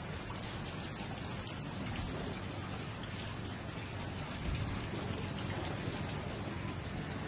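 Steady rain: a dense, even hiss dotted with small drop ticks.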